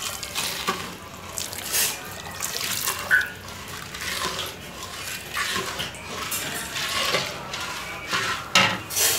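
Water pouring into a large iron kadai of sugar, then a long-handled metal spatula stirring and scraping the sugar and water against the pan, making irregular sloshing, scraping strokes as the sugar dissolves for syrup. The strokes are loudest near the end.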